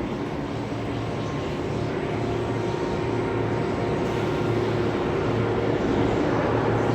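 Steady hum of CNC machining equipment running, with several held tones over a noisy background, slowly growing a little louder.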